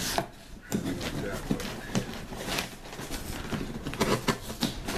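A knife slicing packing tape on a long cardboard box, with the cardboard flaps rustling and knocking: a string of short scrapes and taps.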